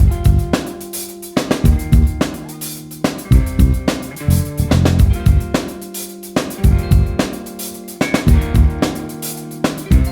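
Instrumental band music with a drum kit keeping a steady beat under sustained guitar or bass notes.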